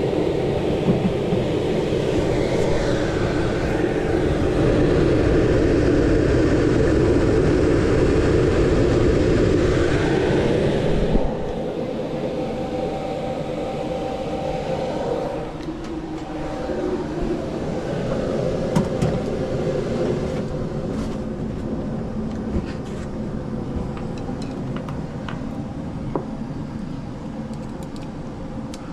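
Indoor air handler's blower running with a steady whir and rumble, loudest for the first ten seconds or so and then a little quieter. A few light clicks and knocks come later on.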